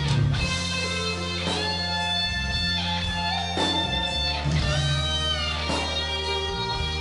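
Live rock band playing: electric guitar with bent, gliding notes over a steady low bass line and held chords, with a drum hit about every two seconds.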